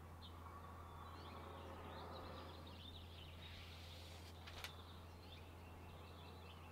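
Faint outdoor background of small birds chirping repeatedly over a steady low hum, with a single short click about two-thirds of the way through.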